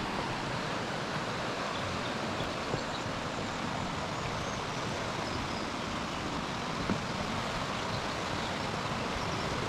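Steady rushing of flowing water, with a couple of faint knocks.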